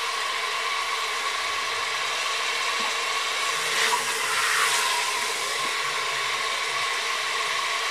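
Chicken pieces sizzling in hot oil in a pressure cooker as they are scooped out with a slotted spoon, with a steady whirring hum underneath.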